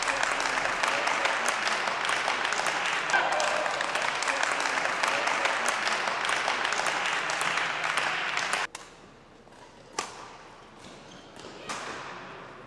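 Sports hall ambience: a loud, dense wash of crowd voices peppered with sharp knocks, which cuts off abruptly about nine seconds in. What follows is a much quieter hall background with two or three isolated sharp hits.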